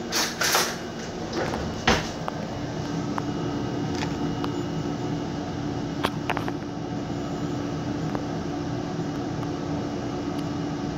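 Kitchen handling noises as a metal spoon is taken up and scoops powder in a bowl: a brief rustle, a sharp click about two seconds in, and a few lighter clicks later, over a steady low hum.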